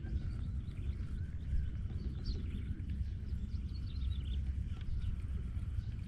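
Outdoor field ambience: a steady low rumble on the microphone with short, scattered bird chirps.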